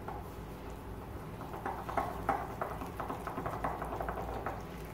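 Wire whisk beating egg yolks, sugar and cornstarch in a glass bowl: light, quick ticks of the wires against the glass, about four a second, starting about a second and a half in.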